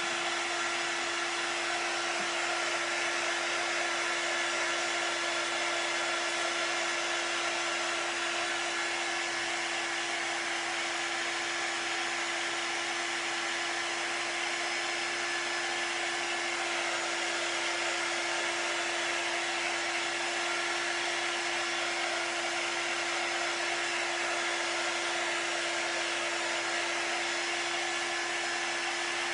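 Handheld craft heat tool running steadily, its fan blowing hot air with an even whir and a steady hum, drying wet ink paste on a glass.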